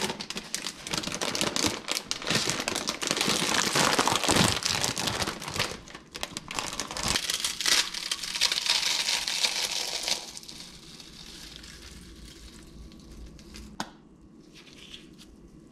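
Lay's potato chip bag crinkling as it is handled, and potato chips crackling as they are crushed between gloved hands. The crackling stops about ten seconds in, followed by a single sharp click near the end.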